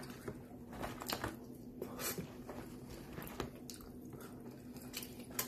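A man chewing a mouthful of sandwich with his mouth, wet clicks and smacks every second or so, over a faint steady hum.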